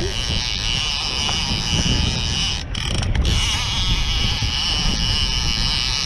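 Strong wind buffeting the microphone on a boat out in rough, choppy water, a steady rumbling noise with a faint steady hum above it.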